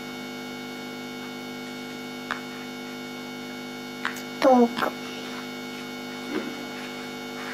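Steady electrical hum with a few sharp clicks of plastic building blocks being handled. About halfway through comes the loudest sound, a short child's vocal sound falling in pitch.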